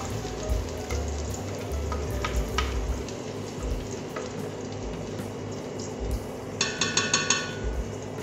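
Silicone spatula scraping thick blended chilli spice paste out of a plastic blender jug into a pot, with a few light taps of spatula on jug and a soft frying hiss. Near the end comes a brief rapid squeaky rattle.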